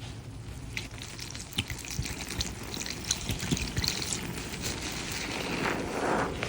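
A sponge full of soapy foam being squeezed, the suds crackling and water pouring out. The rush of water swells near the end.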